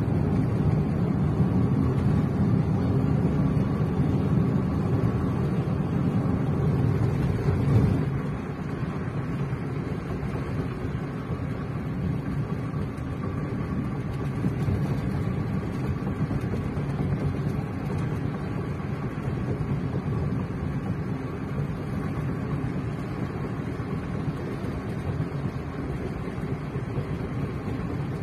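Car driving on a paved road, heard from inside the cabin: steady engine and tyre noise. It drops a little about eight seconds in and then holds steady.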